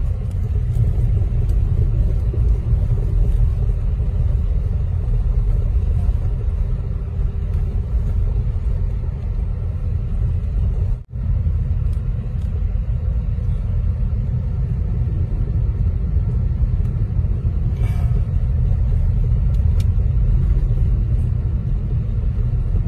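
Steady low rumble of a car's engine and road noise, heard from inside the cabin while it is driven slowly over a snow-covered road. The sound drops out for a moment about halfway through.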